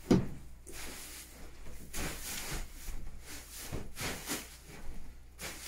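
Loose coop bedding being spread and shuffled over a shed floor: a run of dry rustling and scraping sweeps.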